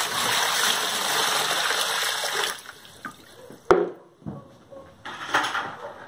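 Water poured from a plastic container into the empty plastic outer tub of an LG Turbo Drum washing machine, a steady splashing pour that stops about two and a half seconds in. A single sharp knock follows a second later.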